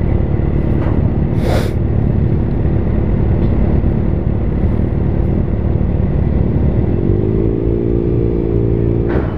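Kawasaki Ninja ZX-6R's inline-four engine idling steadily, with a brief hiss about a second and a half in. About seven seconds in the engine note rises a little and holds as the bike moves off at low speed.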